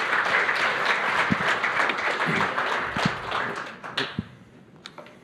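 Audience applause that fades out about four seconds in, followed by a few small knocks.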